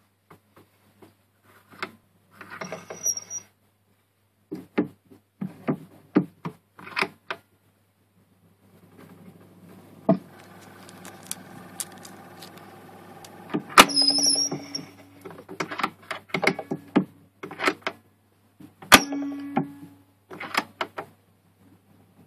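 Handling noises of a Victrola acoustic gramophone being readied to play a 78: a string of clicks and knocks, a steady whir in the middle, and two sharp knocks with a brief metallic ring.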